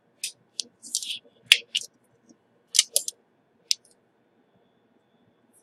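A run of about ten short, sharp clicks and taps, some in quick pairs, from handling the iPhone being tested after repair. They stop a little before four seconds in.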